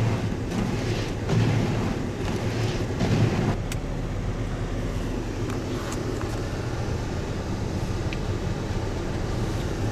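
A car's engine running with a steady low rumble, with rougher, uneven noise over it for the first few seconds.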